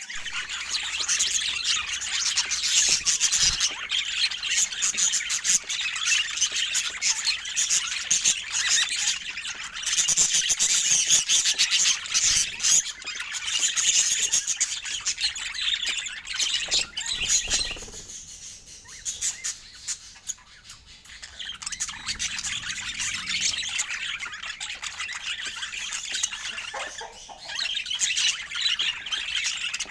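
Budgerigars chirping, chattering and squawking continuously, with a quieter patch around two-thirds of the way through.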